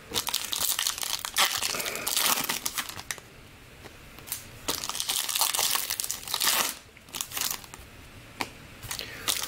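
Crinkling of a foil trading-card pack wrapper and rustling of cards being handled, in two longer spells of a few seconds each with softer handling between.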